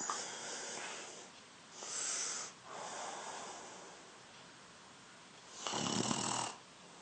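A 14-year-old boy snoring in his sleep: three airy breaths in the first few seconds, then a louder snore with a low buzz about six seconds in.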